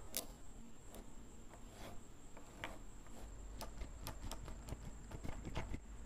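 Small magnetic balls clicking and snapping against each other as hands pull a flat pattern of them apart and re-form them into a chain. The clicks come irregularly and grow thicker in the second half.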